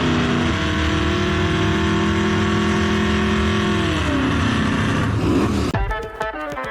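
Car engine running at a steady high pitch, then its pitch falls away after about four seconds. Music starts near the end.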